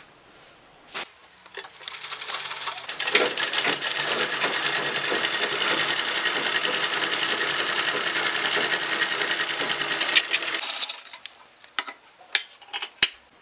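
Black straight-stitch sewing machine sewing a seam through cloth: it starts up about two seconds in, runs steadily, and stops about eleven seconds in, followed by a few sharp clicks.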